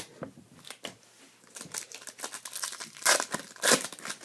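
Trading card pack wrapper being crinkled and torn open, with two louder crinkling bursts about three seconds in.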